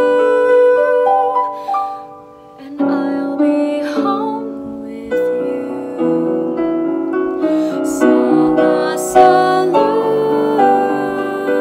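A woman singing a slow musical-theatre ballad over piano accompaniment, holding long notes, with a short breath between phrases about two seconds in.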